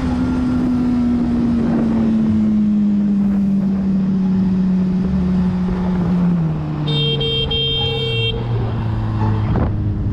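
Sport motorcycle engine heard from the rider's camera, its pitch falling slowly as the bike slows and dropping further about six seconds in. A horn sounds for about a second and a half about seven seconds in.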